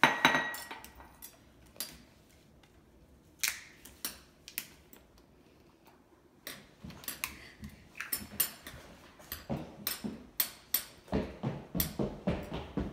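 Plastic vegetable-oil bottle being handled and opened: a sharp clink at the start, then scattered clicks and crackles of the bottle and its cap. Near the end comes a quick run of glugs as oil pours from the bottle into a glass measuring cup.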